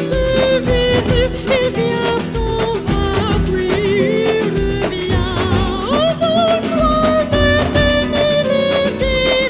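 Background music: a wavering melody over a steady beat.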